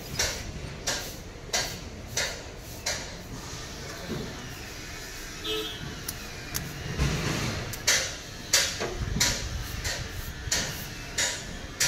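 Car A/C compressor's electromagnetic clutch clicking as its new coil is switched on and off with a lead from the battery. The sharp clicks come about every two-thirds of a second, in a run at the start and another from about eight seconds in. The clicks show that the clutch coil is engaging.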